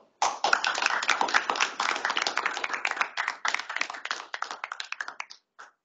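A small audience applauding. The clapping thins out and stops after about five seconds, with one last clap.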